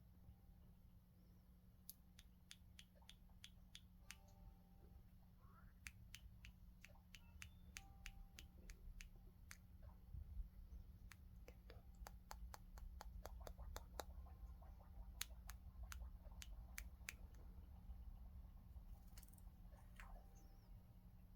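Green-cheeked conure preening, her beak making faint, sharp clicks in irregular quick runs over a low steady hum.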